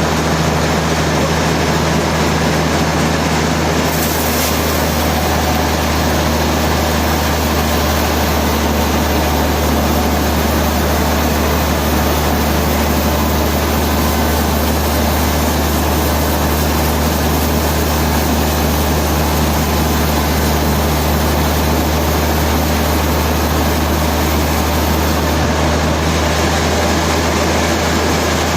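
Heavy machinery running steadily: a deep, constant hum under an even wash of mechanical noise.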